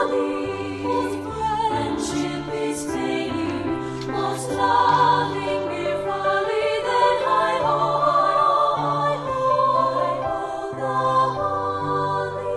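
Choir singing in harmony, several voices holding sustained chords that change every second or so over low held notes.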